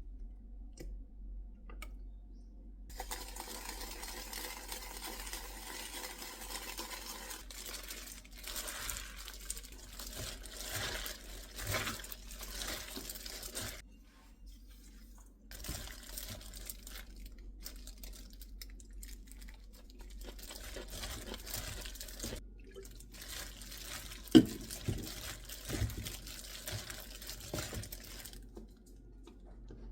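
Handling noises from food preparation: crinkling, tearing and crunching with scattered clicks, and one sharp knock about 24 seconds in.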